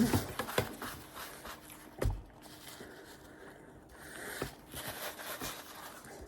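Close-up eating sounds of someone chewing pizza, with small clicks and rustles and a single low thump about two seconds in.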